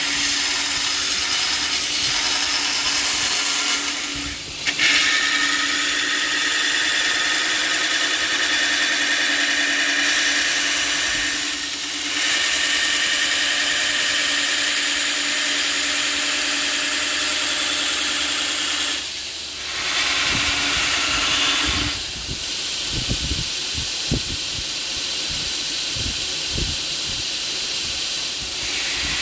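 Metal-cutting bandsaw running and cutting through a 1/8-inch plate of 80CrV2 steel, a steady high-pitched whine with brief breaks between cuts. In the last several seconds the whine is weaker and there are scattered knocks.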